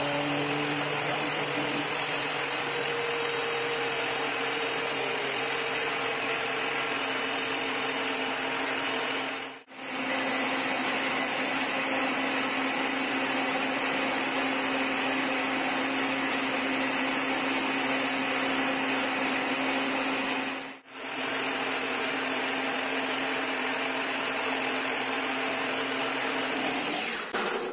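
Electric angle grinder converted into a sugar mill, its motor running steadily at full speed with a lidded enamel pot on the spindle, milling granulated sugar into powdered sugar. The sound breaks off sharply twice, for a moment each time.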